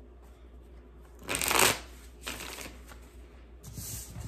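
Tarot cards being shuffled by hand: a few short rustling bursts, the loudest about a second and a half in.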